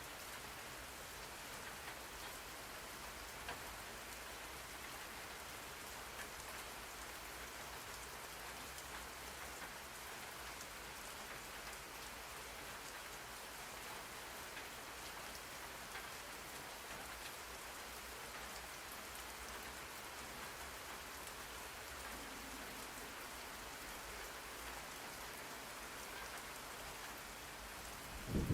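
Steady rainfall: an even hiss of rain with scattered faint drop ticks.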